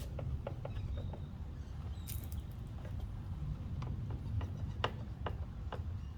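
Scattered light clicks and taps as self-tapping screws are hand-tightened into a plastic fender flare, with a brighter scraping tick about two seconds in, over a low steady rumble.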